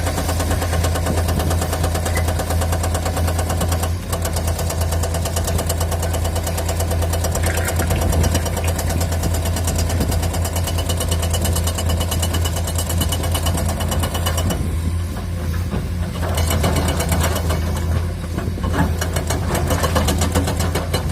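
Heavy excavator's diesel engine running steadily with a fast, even knocking, which dips briefly a few times.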